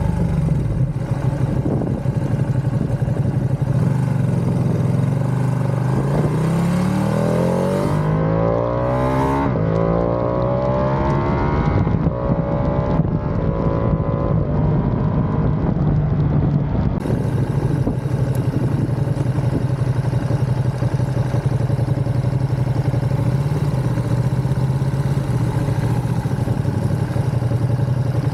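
Ducati Panigale V2's 955 cc twin-cylinder engine running. Its pitch climbs for several seconds in the middle as it is revved or accelerates, then settles back to a steady note.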